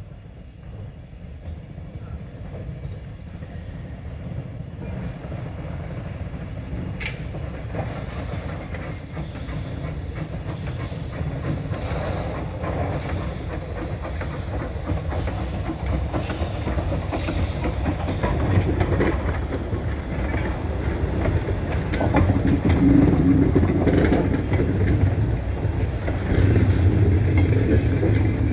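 Two small saddle-tank steam locomotives hauling a goods train of wagons, approaching and passing: a steady low rumble that grows louder throughout, with occasional sharp clicks from the wheels.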